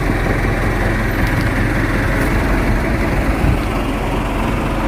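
A heavy engine running steadily at a low idle, with an even low hum.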